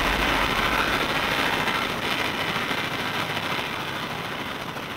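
Donzi 43 ZR powerboat's engines running, a steady mechanical sound that fades away gradually.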